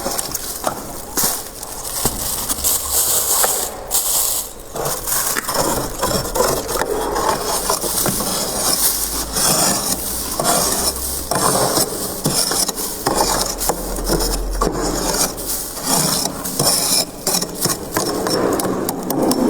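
Soft freezer frost crunching close to the microphone: a dense, continuous run of small crackles and crunches.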